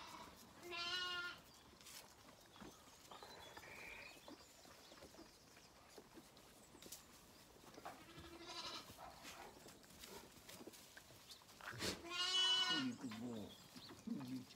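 Zwartbles lambs bleating: three quavering bleats, the last one, near the end, the loudest and longest.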